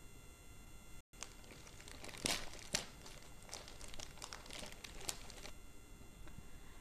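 Plastic courier mailer bag crinkling as it is torn open by hand, a run of short crackles and rips between about two and five and a half seconds in.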